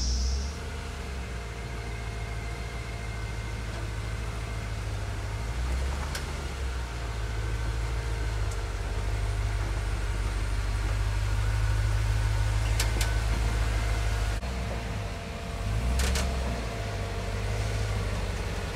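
Hummer H3 4WD engine running at low revs as it crawls over deep ruts, its note swelling and easing with the throttle, with a few sharp ticks in the second half.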